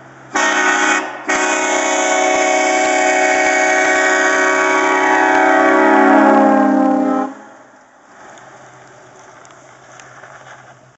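Hornblasters H4BA four-trumpet train horn, blown as one short blast and then one long blast of about six seconds, sounding a chord of several notes. The pitch sags slightly near the end before it cuts off.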